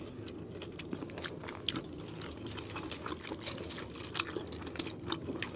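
People eating with their hands: chewing, lip smacks and fingers picking at grilled fish and rice, heard as many small irregular clicks and wet ticks. A faint steady high-pitched whine runs underneath.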